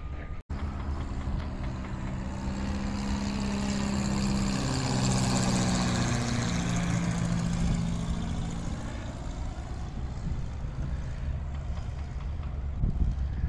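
Small propeller plane flying low overhead: a steady engine-and-propeller drone that grows louder, peaks about halfway through, drops in pitch as the plane passes, then fades away.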